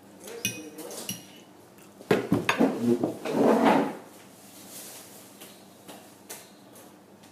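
Cutlery clinking and scraping on a plate during eating: a few light clicks, then a louder run of knocks and scraping about two to four seconds in.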